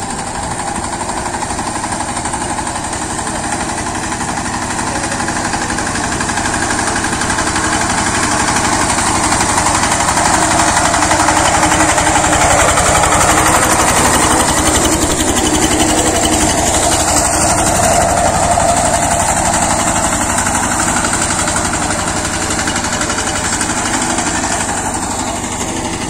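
Two-wheel power tiller's engine running steadily under load as it ploughs wet paddy mud, with a rapid, even pulse. It grows louder to its loudest about halfway through, then eases off.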